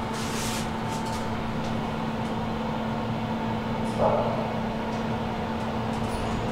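Fast inclined elevator running, a steady mechanical hum with a constant low tone, and one brief knock about four seconds in.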